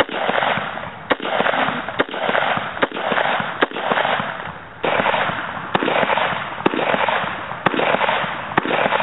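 AR-15 rifle in 6.8 SPC, fitted with a Phalanx flash hider, fired semi-automatically about ten times at roughly one shot a second. Each shot is a sharp crack followed by a long rolling echo.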